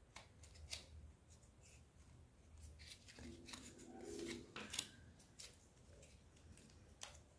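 Near silence with faint, scattered clicks and light rustles of hands handling wire-stemmed E.V.A. foam orchids and floral tape.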